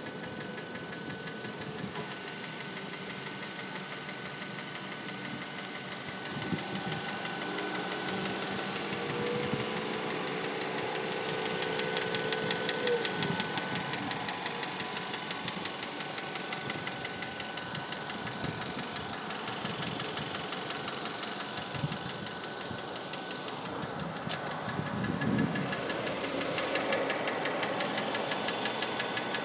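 2004 Mazda3 engine running with a steady, evenly spaced ticking knock that gets louder a few seconds in. The owner likens it to valve noise. It appears as the engine warms and has survived a new timing chain, lifters and tensioner; the dealer has since blamed a rod bearing.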